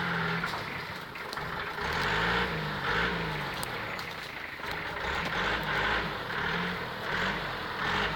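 Off-road jeep engine running and being revved, its pitch rising and falling several times.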